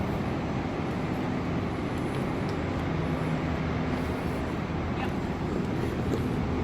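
Steady city traffic noise: an even rush of passing vehicles with a low engine hum underneath.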